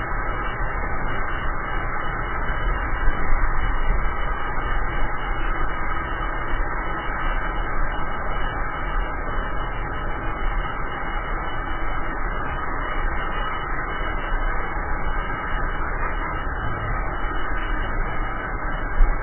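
Steady rushing of wind on the handlebar camera's microphone mixed with the rumble of a drift trike's wheels rolling fast on asphalt downhill, with a short louder knock near the end.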